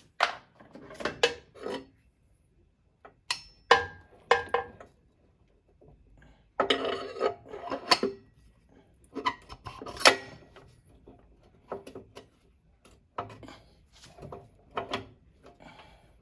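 Irregular metal clinks and scrapes of the front axle bolt and spacers being handled and worked into the wheel hub, in short bursts with quiet gaps.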